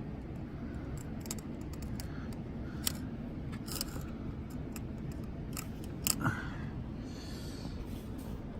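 Small, sharp plastic clicks and scrapes of hands handling a servo cable's three-pin connector and pushing it onto the header pins of a PWM driver board. A steady low hum runs underneath.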